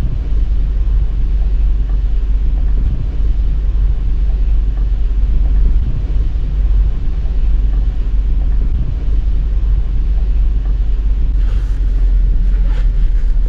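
Steady low rumble of a vehicle driving, engine and tyre noise running on without a break.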